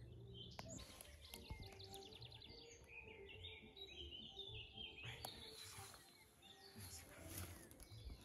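Faint birdsong in a quiet forest: a short rapid trill about a second in, then scattered high chirps, over a low background hum.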